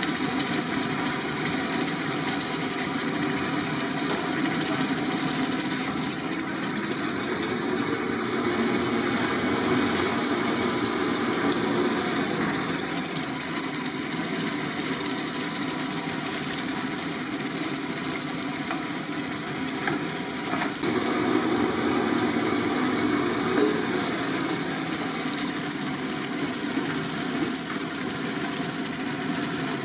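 Fish curry boiling hard in a large aluminium pot on a stove: a steady rushing noise with sizzling and bubbling.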